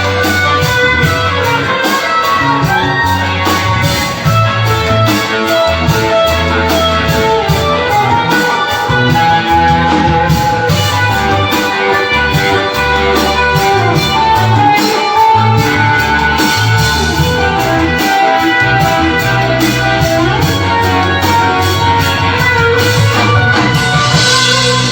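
Electric guitar played through a Q-pal overdrive pedal, over a steady rhythmic backing with a full low end.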